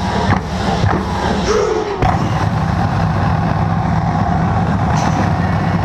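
A few last drumline hits in about the first second, then a steady low rumble for the rest.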